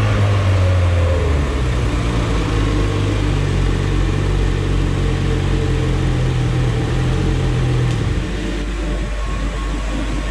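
Rotax 800 E-TEC two-stroke twin snowmobile engine running steadily on a dyno after a full-throttle pull, made with the fuel richened by 2%, which cost power. It drops in pitch about eight seconds in and cuts off near the end.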